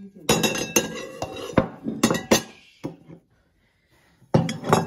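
Serving spoon clinking and scraping against a cooking pan and a plate as food is dished up. There is a quick run of sharp, ringing clinks, a short pause, then a few more clinks near the end.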